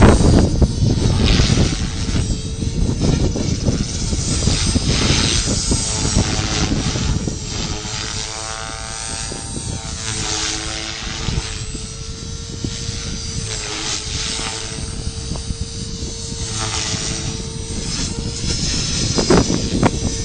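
Align T-Rex Pro radio-controlled helicopter in flight: a steady whine from its motor and rotor, shifting in pitch as it manoeuvres. Gusty wind rumbles on the microphone, loudest at the start.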